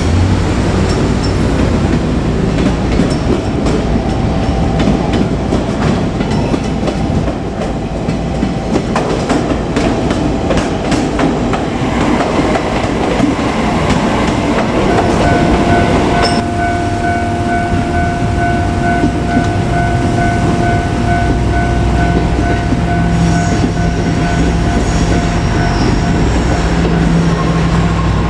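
JR Kyushu trains running past on the rails, their wheels clicking over the rail joints. About halfway through, a steady high ringing tone starts and carries on until near the end.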